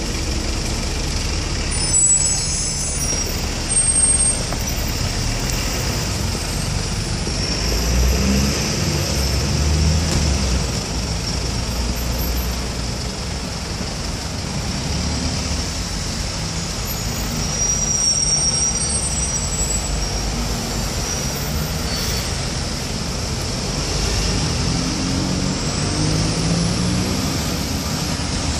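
Urban road traffic at a roundabout: a single-decker bus pulling away from its stop and cars passing, with engine notes rising several times as vehicles accelerate over a steady rumble.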